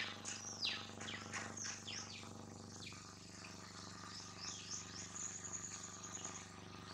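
Wild birds chirping: a run of quick, high, falling calls, then a high trill about two-thirds of the way through, over a faint steady low hum.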